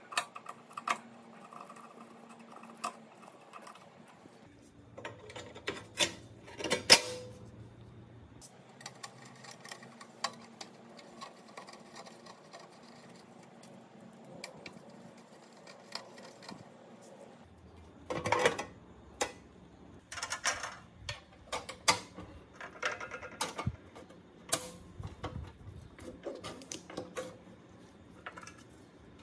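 Sheet-metal parts of a comb binding machine being handled and screwed together: scattered clicks, taps and metallic clinks, the loudest knock about seven seconds in and quick runs of clicks in the second half.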